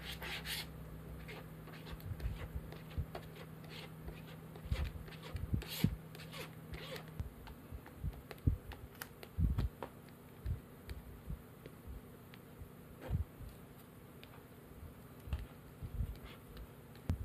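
Plastic applicator spreading adhesive over the back of a black Velcro sheet: irregular soft scrapes and taps. A low steady hum stops about seven seconds in.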